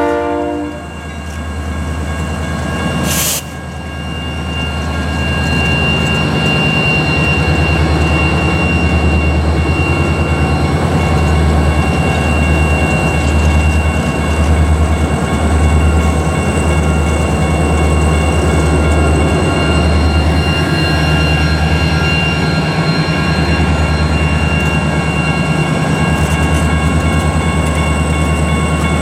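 An EMD SD40-2 diesel locomotive's horn cuts off in the first second, then the locomotives pass close by with a deep, pulsing engine rumble and a steady high whine. There is a single sharp knock about three seconds in.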